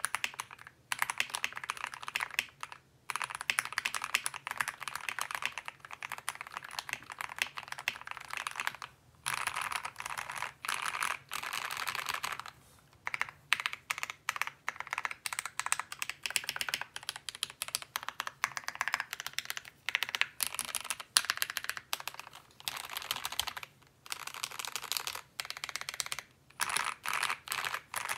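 Steady typing on a GMMK Pro mechanical keyboard with lubed and filmed Gateron Ink switches, a polycarbonate plate and GMK keycaps, in runs of rapid keystrokes broken by brief pauses every few seconds.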